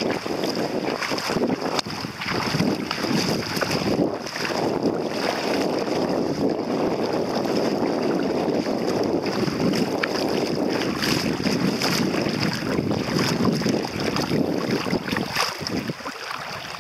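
Small lake waves sloshing and lapping around a camera held right at the water's surface, with wind buffeting the microphone.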